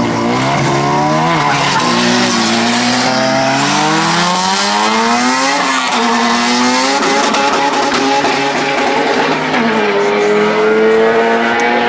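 Tuned car engines revving hard on launch and accelerating down a drag strip, with tyre squeal. The engine pitch climbs and drops back several times as the cars shift up through the gears.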